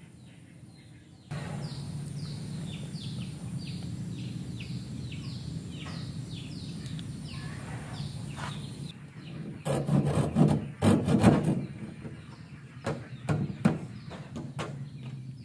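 Steady low hum with a bird chirping over and over, short falling notes about two or three a second. After that, about two-thirds of the way in, come irregular knocks and rubbing of wood being worked by hand.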